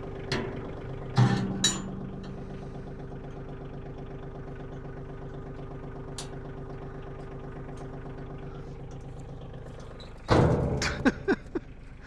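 Compact tractor's engine running steadily, driving a Titan 6-inch PTO wood chipper. A couple of sharp knocks come about a second in, and a loud rushing burst comes about ten seconds in, followed by a few clicks.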